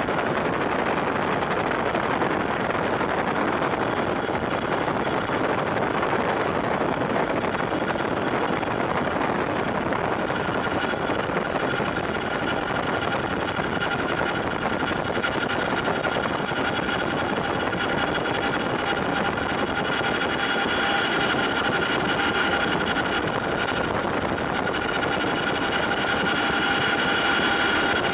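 Cabin noise inside a CH-47J Chinook climbing after takeoff: the steady din of its twin turboshaft engines and tandem rotors. A high steady whine comes in about ten seconds in and grows stronger.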